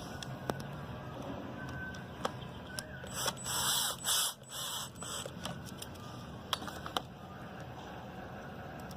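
Small mechanical handling noises from working on the pump and its wiring: scattered sharp clicks and a rasping, scraping burst of about two seconds in the middle, over a low steady hum.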